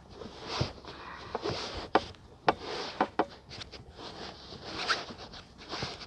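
Fabric being handled and twisted on a table: soft, uneven rustling broken by scattered small clicks and taps.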